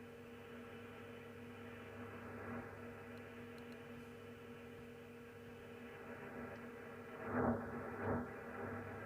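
Shortwave AM receiver on 6155 kHz between repeats of a station's closing announcement: an open carrier giving a steady low hum with hiss, and two brief louder swells about seven and eight seconds in.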